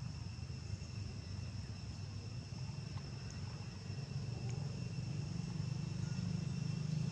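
Outdoor ambience: a steady, high insect drone, two thin unbroken tones, over a louder low rumble that swells a little in the second half.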